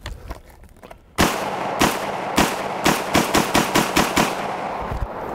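MKA 1919 semi-automatic 12-gauge shotgun firing a rapid string of about ten shots, starting a little over a second in. The shots come faster toward the end, with the report ringing on between them.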